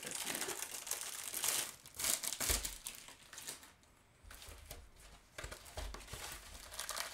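A rolled diamond-painting canvas crinkling in its clear plastic sleeve and rustling as it is handled and unrolled, with its paper backing, in irregular bursts with a short lull midway. A couple of soft knocks come from the roll against the table.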